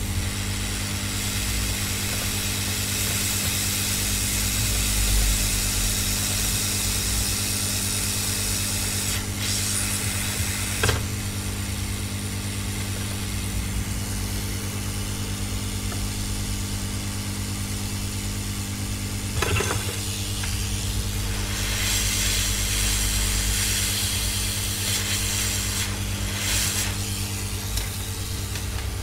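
Hot-air rework gun blowing steadily, a hiss of air over a low fan-motor hum, heating the circuit board so the chips can be desoldered and replaced. Two small clicks come about eleven seconds in and again near twenty seconds.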